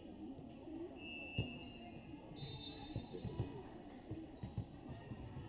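Volleyball rally in a gym: several sharp smacks of the ball being hit. Sneakers squeak briefly on the court between the hits.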